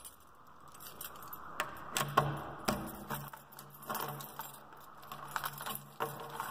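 A bunch of keys jangling on a key ring, with sharp clicks and scrapes as a key is worked in a door lock.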